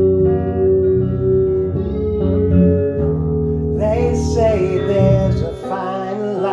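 Music: a guitar-led song, with a singing voice coming in about four seconds in.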